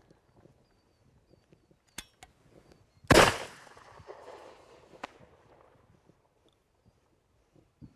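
A 26.5mm flare pistol fires a single loud shot about three seconds in, which fades out over a second or two. A sharp click comes about a second before the shot, and a smaller one about two seconds after it.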